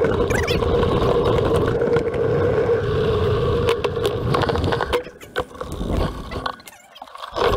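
Mountain bike rolling over a rough trail: steady tyre noise with the bike's rattling and ticking. About five seconds in it slows onto grass and the noise drops and turns patchy.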